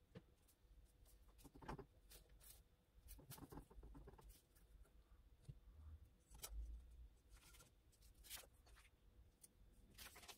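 Near silence, with faint scattered taps and rubs from two glass panes being pressed together over a layer of acrylic paint and then lifted apart to make a dendritic print.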